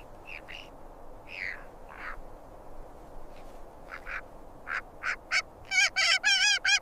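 Short bird-like squawking calls, sparse and faint at first, then coming faster and louder near the end as a quick run of wavering, quacking cries.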